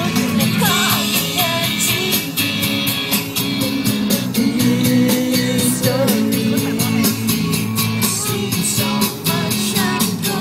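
Background music: a rock song with a singing voice, guitar and a steady beat.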